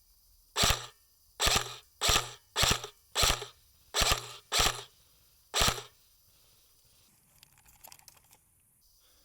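Airsoft rifle firing single shots in quick succession, eight shots about half a second to a second apart, then stopping.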